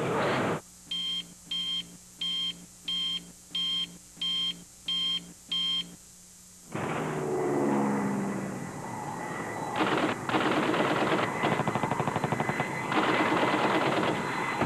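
A short burst of noise, then eight short, evenly spaced electronic beeps. From about seven seconds in comes a dense sound-effect track of gunfire, with rattling bursts of machine-gun fire from about ten seconds in.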